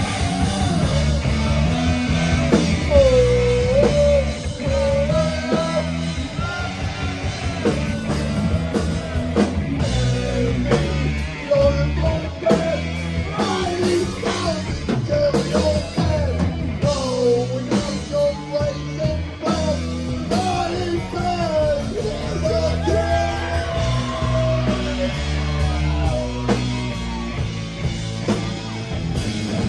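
Live rock band playing loud: a singer's lead vocal over guitars and a drum kit, heard from the crowd in a concert venue.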